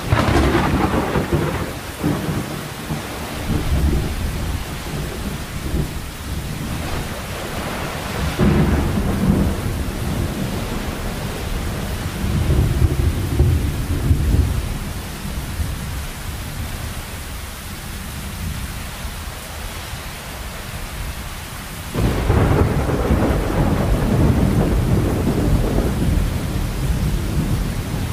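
Heavy rain falling steadily, with thunder rolling through it. Several low rumbles swell and fade, and about three quarters of the way in a louder peal breaks in suddenly and keeps rolling.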